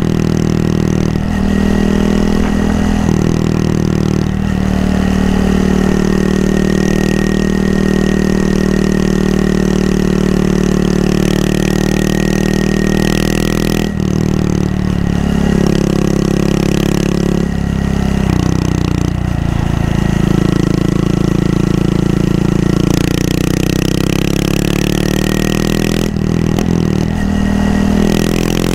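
Honda Monkey 125's single-cylinder four-stroke engine running under way, its note dropping and climbing again several times as the throttle and gears change, with a brief break about 14 seconds in. A steady rush of wind noise runs over the engine.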